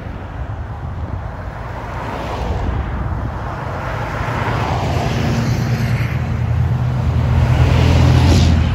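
Road traffic on a snow-covered street: tyres hissing through snow and slush with engines running. One vehicle's engine hum grows louder over the second half and peaks just before the end as it passes close.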